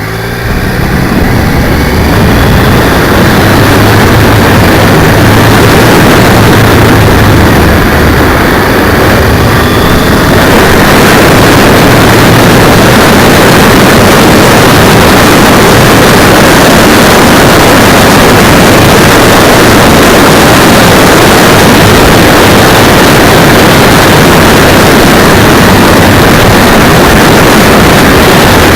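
Motorcycle riding, heard through a cheap 808 camera's microphone strapped to the brake cylinder: the engine hum shows under rising wind noise at first, then from about ten seconds in a loud, even rush of wind and road noise overloads the microphone.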